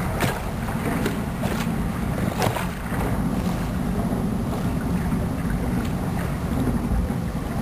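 Wind buffeting the microphone over the rush of sea water past the hull of a sailboat sailing close-hauled, with a few sharp splashes in the first couple of seconds.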